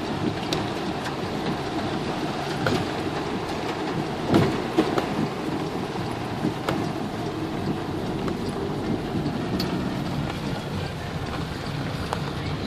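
Heavy rain falling on a moving car, with the steady noise of the car running on the wet road and scattered sharp taps, one louder knock about four seconds in.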